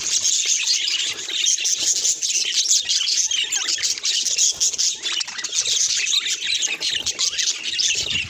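Budgerigar chatter: a continuous, busy run of short, high chirps and squawks.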